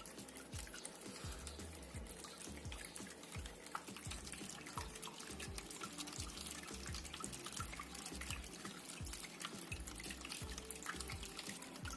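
Water trickling and splashing in a small homemade indoor waterfall fountain, a steady patter of drops.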